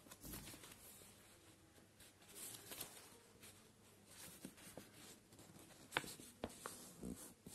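Faint rustling of a sheet of paper being folded and creased flat by hand on a table, with a few light ticks and taps, the sharpest about six seconds in.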